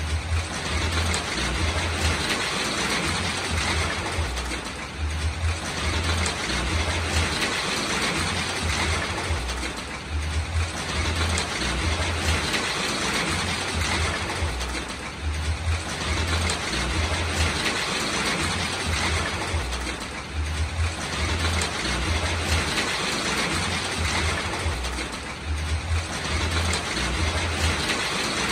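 Rainstorm: a steady rush of rain and wind through the garden trees, with wind rumbling on the microphone. The noise eases briefly about every five seconds.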